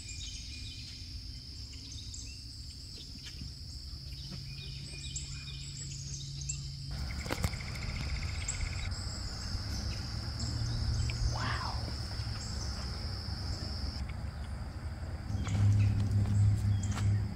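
Swamp ambience: scattered bird chirps over a steady high-pitched drone, with a low rumble underneath.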